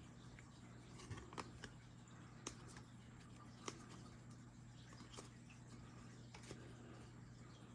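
Faint handling of trading cards: soft, sharp clicks about once a second or so as cards are slid and flipped, over a low steady hum.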